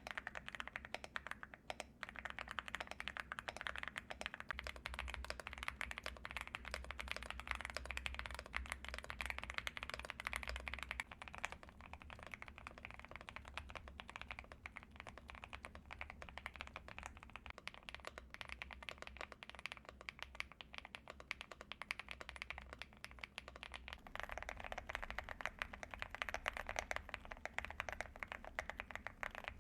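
Fast, continuous typing on a Leobog Hi75 mechanical keyboard: a steady stream of keystrokes, a little quieter through the middle stretch. The typing sound test is made with different switches.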